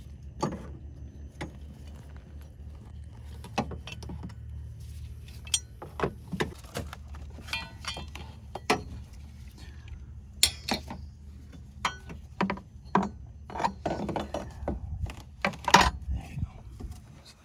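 Irregular metallic clicks and clinks of a car battery hold-down bracket and its hardware being fitted over a 12-volt battery, with the sharpest clink near the end, over a steady low hum.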